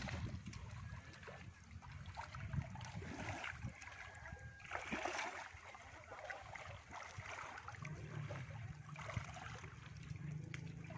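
Light splashing and trickling of water as a fishing net is drawn through a muddy pond, with a small surface splash about five seconds in. A low steady hum comes in near the end.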